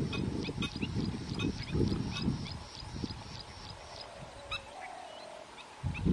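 Waterbirds calling: a fast run of short, high ticking calls with rough low bursts in the first half, fading to a quieter stretch after about three and a half seconds.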